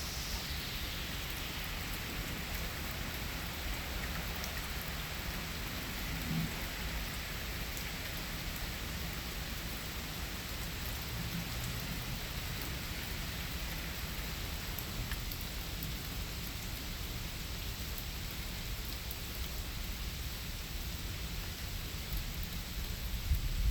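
Steady autumn rain falling, an even hiss throughout, with a low rumble near the end.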